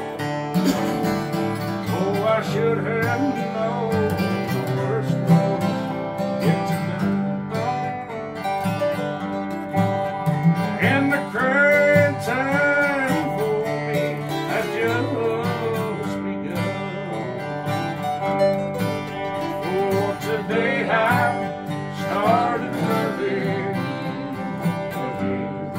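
Instrumental break of a country song on guitars: acoustic guitars strumming the rhythm while a lead guitar plays a melody with bent notes, the bends clearest near the middle and again near the end.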